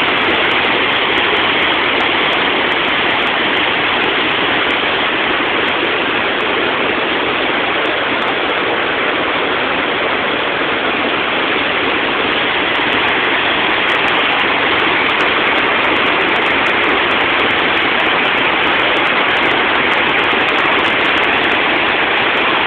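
High Falls waterfall, a large cascade on the Little River, rushing in a loud, steady, unbroken roar of falling water.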